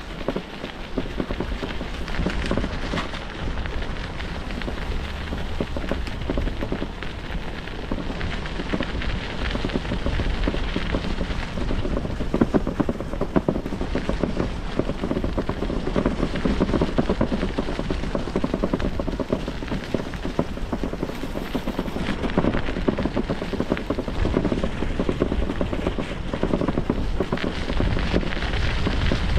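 Bicycle tyres rolling over the path with a steady, dense crackle, over a low rumble of wind on the microphone.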